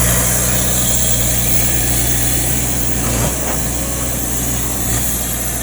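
Kobelco excavator's diesel engine running steadily, its note briefly changing about three seconds in.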